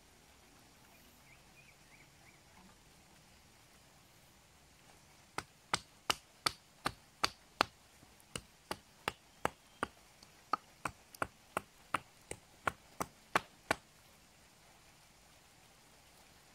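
A short wooden stick knocking against an upright wooden stake about two dozen times, roughly three sharp knocks a second, with one brief pause partway through.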